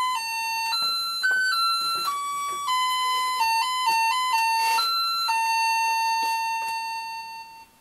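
Small electronic keyboard playing a simple melody, one note at a time, ending on a long held note that cuts off near the end. Faint taps fall about once a second under the tune.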